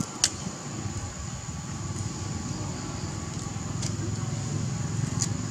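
Pig-tailed macaque biting and tearing sugarcane stalks: four sharp cracks every second and a half to two seconds, the first the loudest, over a steady low rumble.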